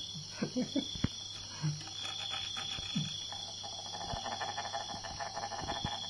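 Rapid, evenly paced scratchy rasping that builds over the last few seconds as a handler works a thin stick against a fighting rhinoceros beetle on a bamboo log. A few small clicks and one sharp tap come in the first couple of seconds.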